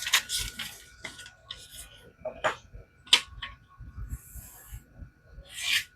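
A few short, separate scraping and rubbing strokes as the freshly stropped knife edge is handled and tested for sharpness.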